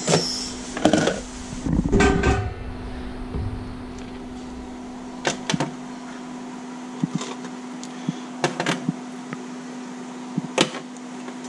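Steady electrical hum of an induction cooktop. Over it there is loud clatter in the first two seconds or so, then scattered light clicks and knocks as steamed crab shells are lifted out of a stainless steel pot.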